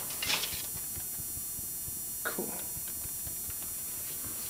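Steady camcorder hiss with faint handling bumps, a brief rustle just after the start and a short falling squeak about two seconds in.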